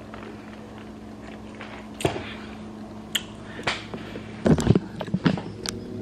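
Kitchen handling noises while cooking: scattered light clicks, then a short run of loud knocks and clatter about four and a half seconds in, over a steady low hum.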